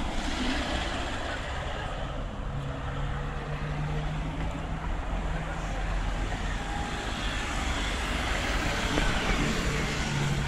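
Steady street traffic noise with the low hum of an engine running nearby, fading in about two and a half seconds in and returning near the end.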